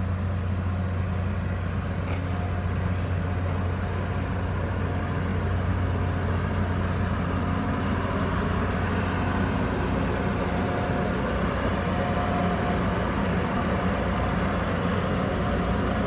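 A 5000 CFM desiccant dehumidifier running at full power, a steady mechanical drone with a strong low hum and a faint whine above it.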